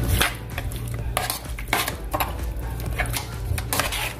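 Metal spoon mixing raw beef chunks with chopped onion and seasonings in an aluminium pot: irregular scrapes and clinks of the spoon against the pot, several times a second or two.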